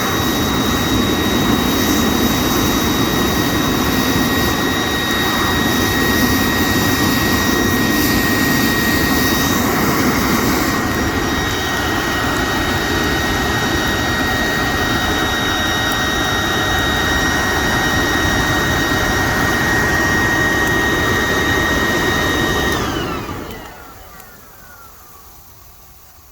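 Small air blower running steadily with a high whine, forcing air into a stump fire to make it burn hotter. About 23 seconds in it is switched off and its whine falls away as it spins down.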